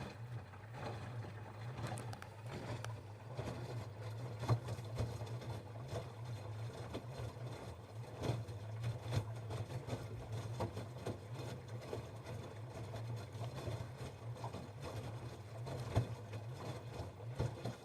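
LG F10B8MD washing machine running with a steady low hum, and an extraneous noise on top of it: irregular clicks and knocks.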